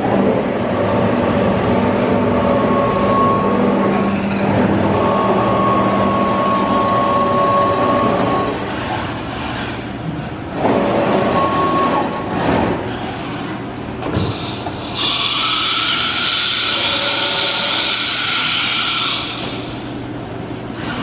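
Thermwood CNC router running a program without cutting: the spindle spins at 12,000 rpm and the gantry drives move the head, giving a steady machine whine that shifts and drops out briefly a few times. For about four seconds near the end a louder hiss with a higher tone comes in.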